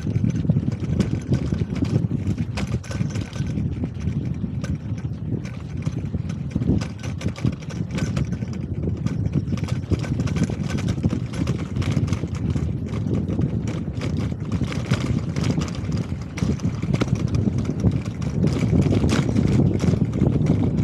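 Wind buffeting the microphone and road rumble from a moving bicycle, with frequent light rattles and clicks throughout.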